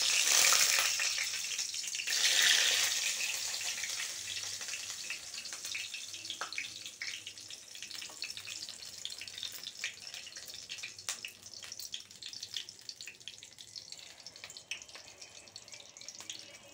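Hot oil in a wok sizzling as whole masala-stuffed brinjals fry in it. The sizzle surges loudly at the start and again about two seconds in, then settles into a steadier, quieter frying hiss with scattered crackles.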